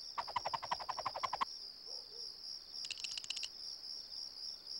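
Crickets chirping steadily in a soundtrack's night-time background. A quick rattling run of about a dozen clicks sounds in the first second and a half, and a brief high chatter comes about three seconds in.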